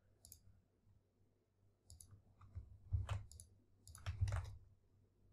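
Irregular clicks of a computer mouse and keyboard, a few scattered ones and then a cluster, the strongest about three and four seconds in.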